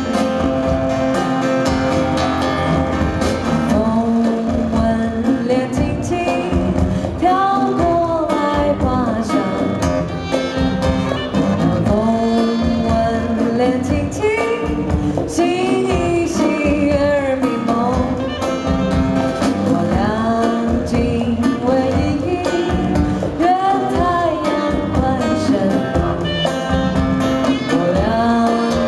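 Live bossa-style band playing continuously: a woman sings the melody into a microphone over acoustic guitar, with drums and percussion keeping a steady beat.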